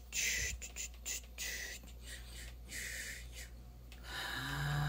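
Hushed, breathy voices whispering in short hissy bursts. About four seconds in, a steady low hum starts up and holds.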